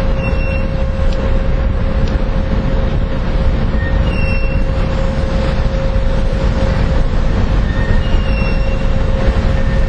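Steady low rumble and a constant hum from an arriving oil tanker, mixed with wind on the microphone. Three faint, short high chirps come about four seconds apart.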